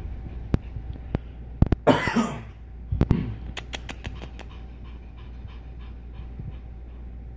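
Cat panting open-mouthed like a dog, short breaths in a steady rhythm, with a loud breathy rush about two seconds in and another shortly after.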